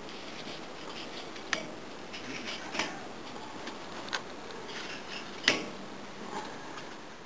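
Folded tortillas being handled on a charcoal grill's wire grate: a few sharp clicks and taps spaced a second or so apart, the loudest about five and a half seconds in, over a steady hiss.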